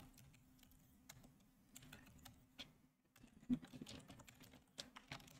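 Faint computer keyboard typing: scattered single keystrokes, with a quick run of keys about three and a half seconds in.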